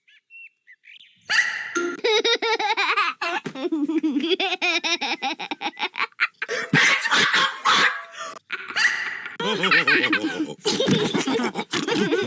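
Cartoon characters laughing together, several voices at once, starting about a second in after a brief faint high tone.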